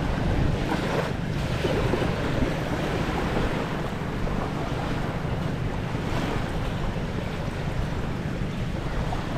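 Steady wash of ocean surf with wind buffeting the microphone.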